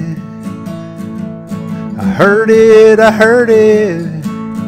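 Acoustic guitar strummed in a country style, with a man singing one drawn-out phrase about two seconds in, his voice wavering on the held note.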